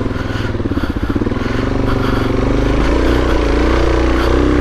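Suzuki DRZ400S single-cylinder four-stroke dirt bike engine running at low revs under throttle, its pitch wavering, dropping in the middle and picking up again.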